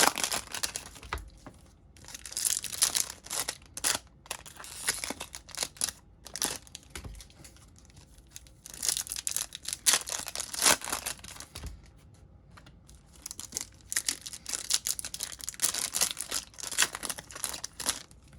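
Foil wrappers of Topps Chrome trading-card packs being torn open and crinkled, in irregular bouts of rustling with short pauses between them.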